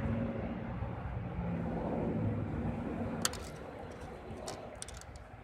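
Steady low rumble of background engine noise, with one sharp click about three seconds in followed by several lighter ticks.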